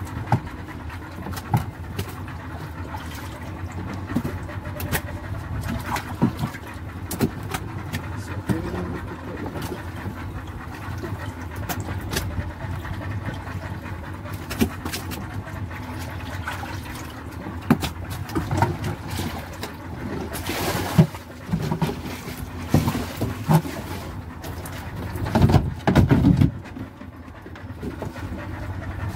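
Knocks, bumps and scrapes of a fish cooler and its lid being handled, over a steady low rumble. A short hissing burst comes about two-thirds in, and a cluster of loud thumps near the end.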